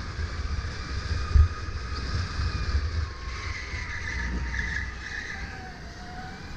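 Sodi RSX2 electric kart on the move: the motor's whine rises and falls in pitch with speed through the corners, over a steady low rumble. One sharp thump about a second and a half in.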